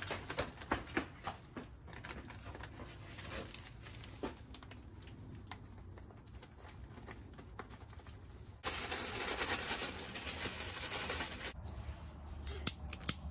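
Plastic bag and paper packet crinkling and crackling as a packet of fish-fry breading is torn open and poured into a bag of perch fillets. About nine seconds in a steady hiss starts abruptly, lasts about three seconds and cuts off. Near the end come a few sharp clicks from a hand lighter at a backpacking gas stove.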